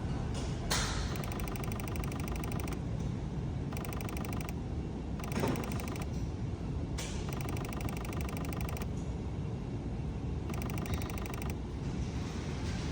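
Rapid, machine-gun-like clicking in repeated bursts of one to two seconds, over a steady low rumble. This is typical of a Ford's starter solenoid chattering as the key is turned and the engine fails to crank.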